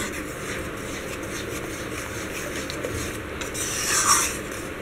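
A flat metal spatula stirs and scrapes a thick besan-and-sugar-syrup mohanthal mixture around a metal kadhai, making a steady rasping scrape. A louder scrape comes about four seconds in.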